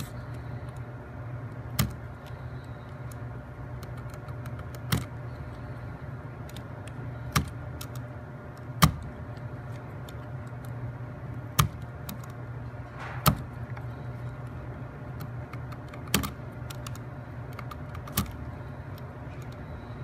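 A utility knife snapping through wooden toothpick pegs as they are trimmed flush against a plywood model part: about eight sharp snaps, a couple of seconds apart, with fainter clicks in between, over a steady low hum.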